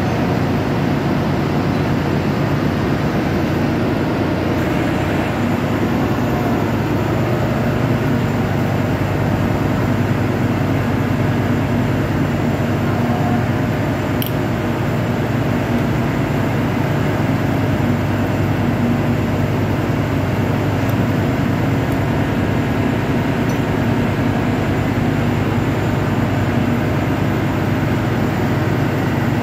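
Loud, steady machinery din with a fast, even low rumble that does not change, typical of a ship's engine room with machinery running.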